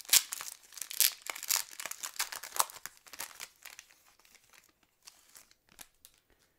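Foil wrapper of a trading card pack being torn open and crinkled. The crackling is dense for about three seconds, then thins out to a few faint crinkles.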